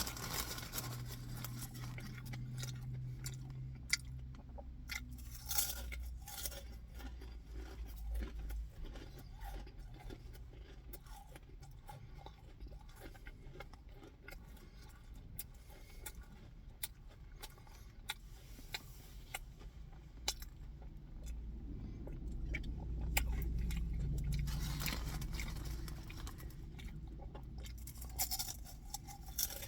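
Close-up crunching and chewing of white cheddar Cheez-It crackers: many irregular crisp crackles and clicks. A low rumble swells in the background about two-thirds of the way through.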